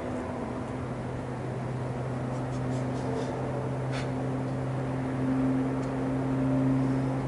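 A steady low hum, with a single faint click about four seconds in.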